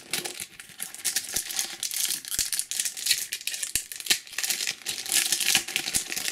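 Trading card booster pack wrapper crinkling and tearing as it is opened by hand: a dense, continuous run of crackles.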